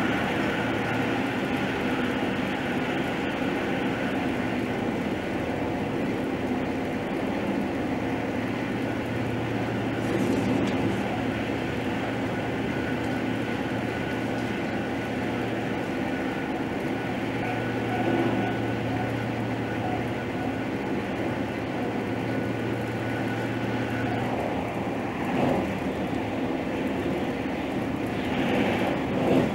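Steady running noise of a passenger train heard from inside the carriage as it travels at speed, the wheels rolling on the rails. A low hum comes and goes through it, with a faint steady high tone that drops out near the end.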